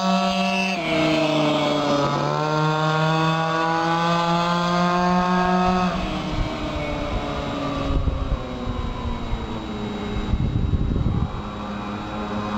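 Zenoah G230RC two-stroke engine on a Go-Ped stand-up scooter running at full throttle as it passes. Its pitch drops just under a second in as it goes by, dips and picks back up around two seconds in, then the engine note stops about six seconds in. Low rumbling noise follows.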